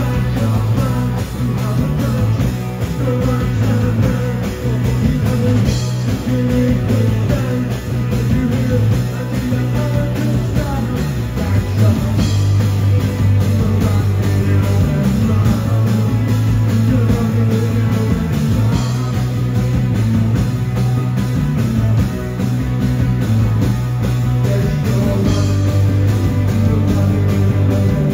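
Rock band playing live at full volume: lead vocals with a backing singer, electric guitars and a drum kit keeping a steady beat, without a break.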